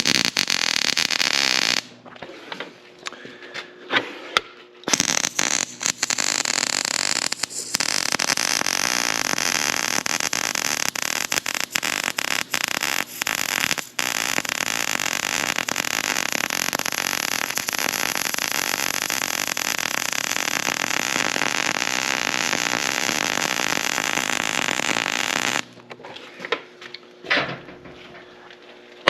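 Arc welding crackling and sizzling as weld is built up on a stud broken off below the surface: a short bead of about two seconds, then after a pause with a few clicks and taps, one long steady run of about twenty seconds.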